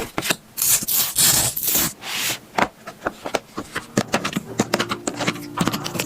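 Drawing strokes scraping and rubbing on paper, a series of hissing strokes and sharp taps. Music comes in about four and a half seconds in.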